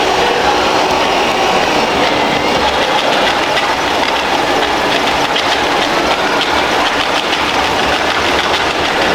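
Radio-controlled construction models working: the steady mechanical running and clatter of their small motors and gearboxes.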